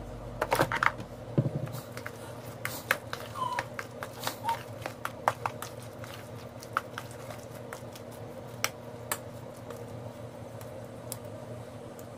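A metal utensil clinking and scraping against a stainless steel mixing bowl as thick potato salad is stirred. The taps come thick and fast in the first half and only now and then after, over a low steady hum.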